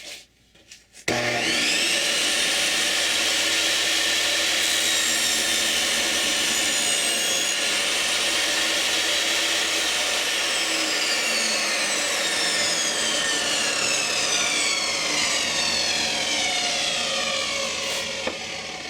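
Ryobi RTS21 portable table saw switched on about a second in, its motor whining up to speed and running steadily. It is switched off around halfway and the whine falls slowly as the blade coasts down.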